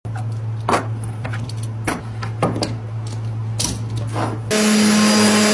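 Bar clamps clicking and knocking as they are loosened and lifted off a glued wooden workpiece, over a steady low hum. About a second before the end, a louder steady machine-like noise with a low buzzing tone takes over.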